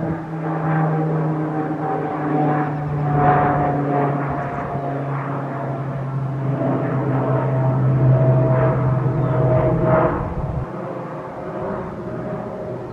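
Boeing 777-300ER's GE90 turbofan engines heard from the ground while the airliner cruises high overhead: a steady drone whose tones slowly fall in pitch as it passes, with a few swells in loudness. The drone grows fainter about ten seconds in.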